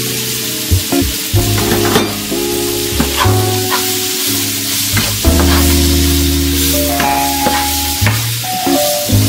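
Vegetables sizzling in a nonstick frying pan as they are stirred with a wooden spatula, which knocks and scrapes against the pan several times. Background music with sustained chords plays underneath.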